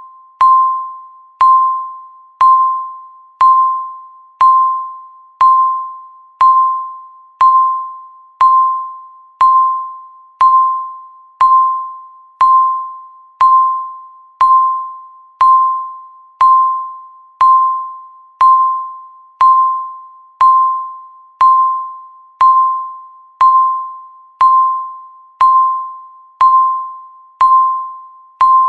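Countdown timer beep sounding once every second, marking each second left. Each beep is a single electronic tone that starts sharply and fades away before the next.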